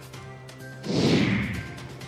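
News-bulletin transition sting over a steady background music bed: about a second in, a loud crash-like hit with a falling whoosh that fades out over most of a second.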